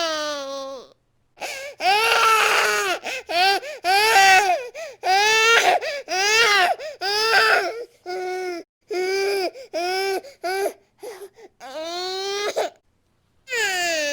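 Baby crying in a rage: a run of a dozen or so short, high wails, each broken off by a catch of breath. There is a brief pause about a second in, another near the end, and a longer rising wail just before that second pause.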